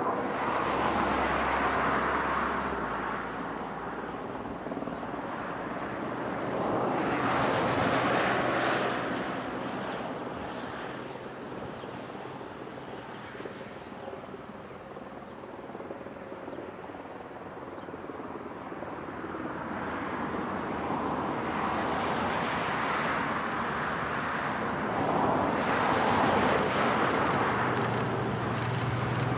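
Outdoor rushing noise that swells and fades slowly every several seconds, like passing road traffic or wind. Near the end, the low steady hum of an approaching diesel railbus comes in.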